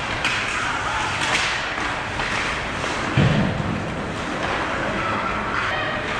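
Ice hockey play on a rink: skate blades scraping and sticks on the ice, with one heavy thud about three seconds in.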